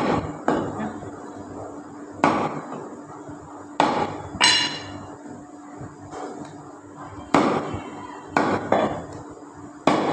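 Meat cleaver chopping mutton on a thick wooden chopping block: about nine sharp, single chops at irregular intervals, one about four and a half seconds in ringing briefly.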